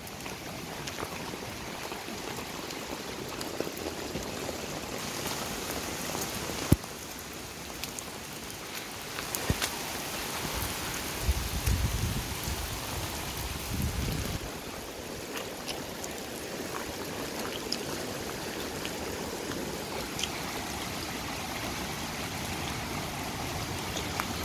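Steady heavy rain falling on leaves and ground, with scattered sharp drop ticks. The rush of a rain-swollen creek slowly grows louder towards the end.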